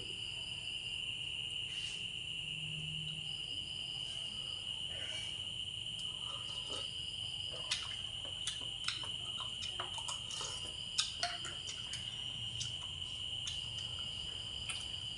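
Crickets trilling steadily on one high note, with a cluster of light clicks of spoon and chopsticks against a bowl as someone eats, mostly in the middle of the stretch.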